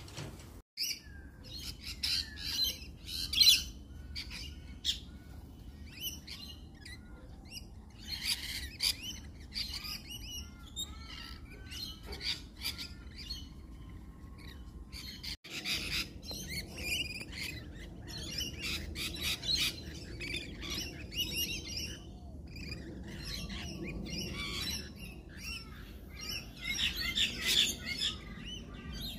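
Birds chirping and squawking in many short, overlapping calls, over a steady low background rumble. The sound drops out briefly twice.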